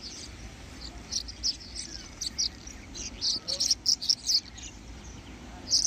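Rapid, high-pitched wildlife chirps in short irregular clusters, from about a second in to past the middle and again near the end, over a low steady rumble.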